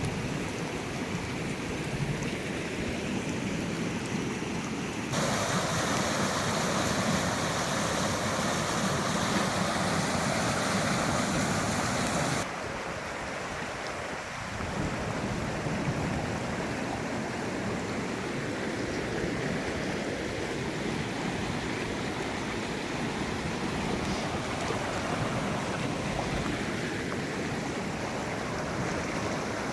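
Rushing floodwater of a swollen creek running near the top of its bank, a steady roar of moving water. It grows louder and brighter abruptly about five seconds in and drops back just as suddenly about twelve seconds in.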